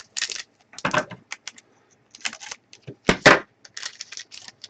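Trading cards being handled and sorted on a table: a string of short, irregular rustles and taps, with a louder knock about three seconds in.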